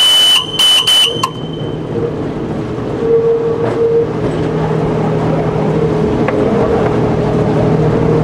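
Train rolling along the track with a steady mechanical drone. Right at the start, as it crosses the level crossing, a loud shrill warning horn sounds in a few short blasts and stops about a second in.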